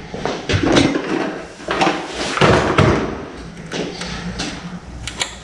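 Workshop handling noise: a run of irregular knocks, clunks and scrapes as metal parts and tools are moved around the underside of a G54B engine during oil pan fitting.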